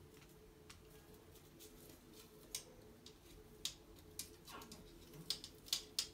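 Faint scattered clicks and taps, more of them and sharper in the second half, as an inspection camera on a cable is worked by hand in a toilet drain, its tip and the hand knocking against the porcelain and stirring the water. A faint steady hum runs underneath.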